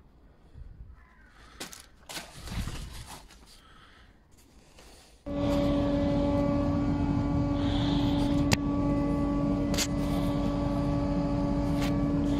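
A few knocks and rustles of handling, then about five seconds in a table saw is switched on and runs steadily at speed with a constant humming tone, not yet cutting. A few sharp clicks sound over the running motor.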